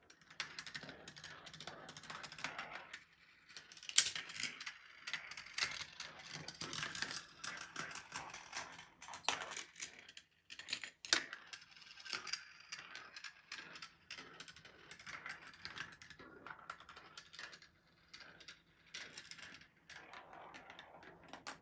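Steel marbles rolling and clattering through a GraviTrax plastic marble run: a continuous stream of quick clicks and rattles as the balls run along the rails and strike track pieces, switches and launchers, with a few sharper knocks, the loudest about four seconds in.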